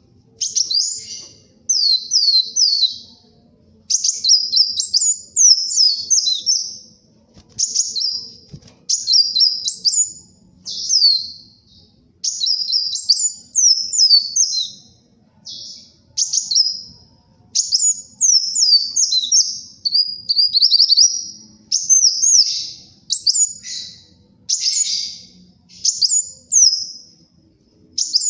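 Kolibri wulung sunbird singing in rapid bursts: strings of quick, high, sharply falling notes, phrase after phrase with short gaps, about one phrase a second.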